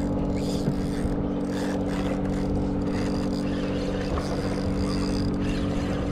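Boat engine idling with a steady, unchanging low hum.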